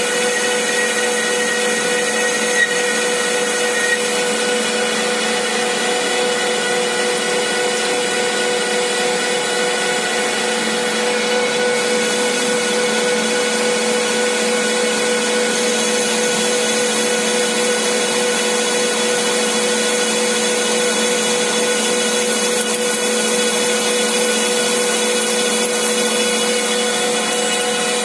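CK6150 CNC lathe running steadily, its spindle turning a metal workpiece while a boring bar cuts the inner hole: a constant machine whir carrying several steady tones, with a higher tone that drops out about four seconds in.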